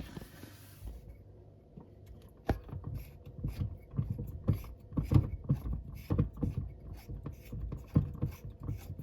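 Irregular knocks, clicks and rubbing from handling things under a kitchen sink, starting about two and a half seconds in, as the cold-water supply valve is turned back on.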